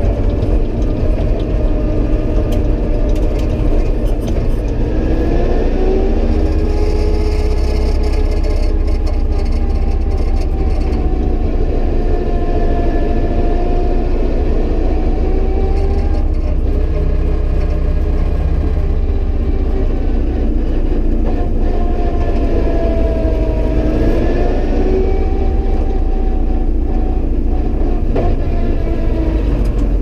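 Turbocharged five-cylinder engine of an Audi Sport Quattro S1 rally car heard from inside the cabin. It runs at moderate revs, its pitch rising and falling slowly over a few seconds at a time, over a steady low rumble.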